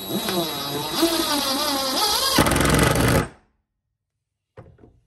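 Cordless power driver running as it drives a 2-inch wood screw into 3/4-inch melamine, the motor pitch wavering under load. About two and a half seconds in it turns into a harsher rapid rattle as the screw head seats flush in the countersink, then stops suddenly a little under a second later.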